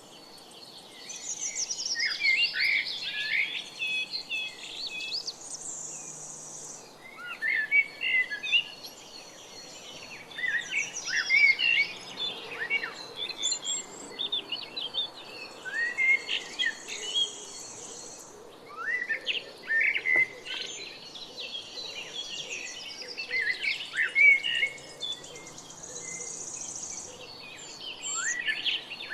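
Small birds chirping and twittering in quick, overlapping bouts. A steady high buzz comes in three times, for a second or two each.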